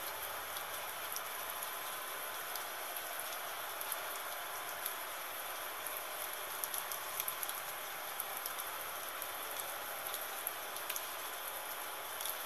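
Gentle rain falling steadily: an even hiss with many small, separate drop ticks scattered through it.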